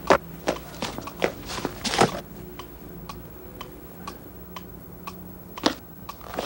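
Steady mechanical ticking, about three ticks a second, with several louder sharp clicks in the first two seconds and one more near the end.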